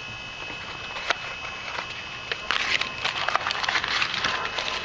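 Small clicks, taps and scraping of objects being handled on a table, sparse at first and busier from about halfway in.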